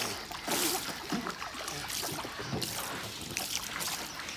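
Water in an inflatable pool splashing and sloshing as children move around in it.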